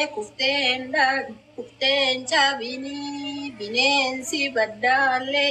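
A woman singing a slow melody in a high voice, with held notes that waver and short breaks between phrases.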